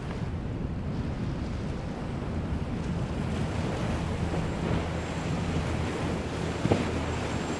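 Large motor yacht running at speed past the microphone: a steady low engine drone under the rushing hiss of its bow spray and wake, with wind buffeting the microphone. A single short, sharp tick near the end.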